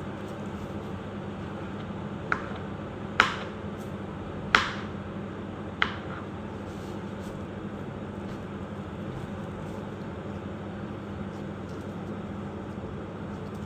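Four sharp knocks or clicks, each with a short ring, spread over a few seconds near the start, over a steady background hum.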